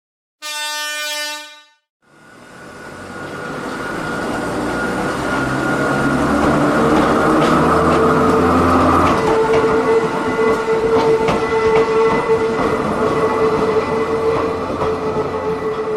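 Dubbed-in electric train sound effect: a short horn blast about half a second in, then the train running, fading in and growing louder over several seconds, with a steady motor whine and clicking wheels over rail joints.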